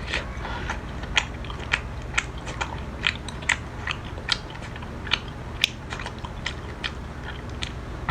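Close-up chewing of crunchy food, with a dozen or so sharp, irregular crunches about one or two a second.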